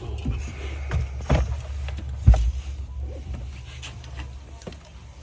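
A few sharp knocks and clunks of tools and car parts being handled, the loudest a little over two seconds in, over a steady low hum.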